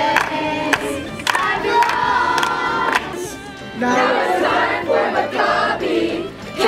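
A group of campers singing a team song together, with a short break about three seconds in before the singing starts again.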